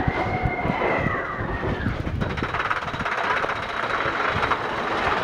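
Mine-train roller coaster rattling along its steel track as it starts up a chain lift hill, with a rapid clatter of clicks from the lift chain.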